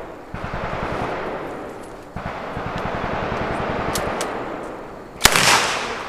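Submachine gun firing on full auto: two long bursts of rapid shots, about a second and a half and then about two and a half seconds, with a brief pause between. One louder sharp crack stands out near the end.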